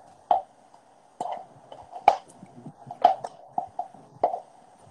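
A knife cutting kernels off an ear of corn held upright in a plastic bowl: an irregular series of sharp knocks and scrapes, roughly one or two a second.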